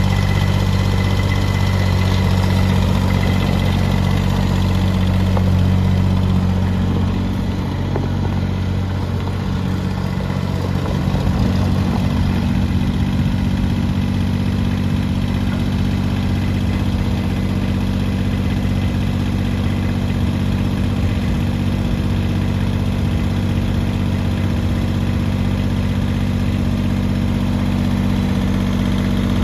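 Kubota riding garden tractor's engine running steadily as it is driven, with a brief dip in the engine note about eight seconds in.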